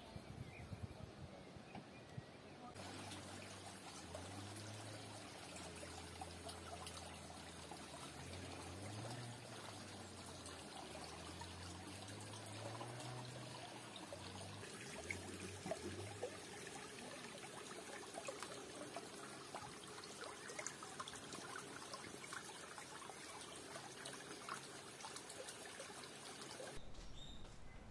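Water trickling steadily along a narrow earthen irrigation ditch; it starts about three seconds in and cuts off shortly before the end.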